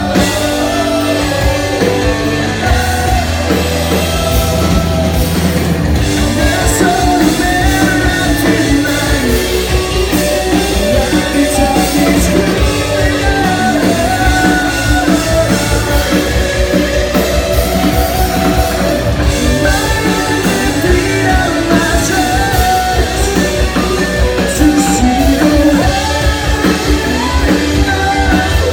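Live rock band playing, with electric guitars, a drum kit and a singer.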